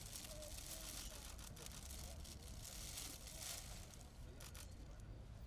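Cellophane wrapping of a flower bouquet crinkling and rustling as it is handled and set down, dying away about four seconds in.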